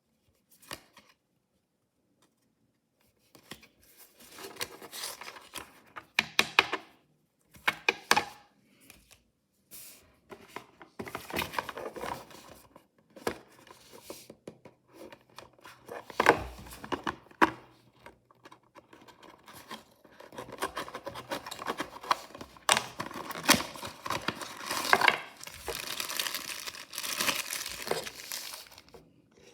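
Plastic packaging of blind-box mystery toys being torn open and crinkled by hand, in irregular bursts starting a few seconds in, with a few sharp clicks.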